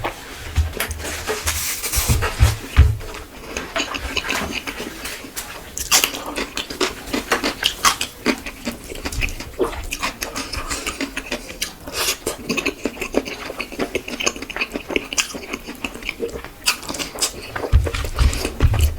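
Close-up eating sounds of a person chewing and lip-smacking through rice and fish curry: many quick, irregular wet clicks and smacks, with a few dull low thumps in the first few seconds and again near the end.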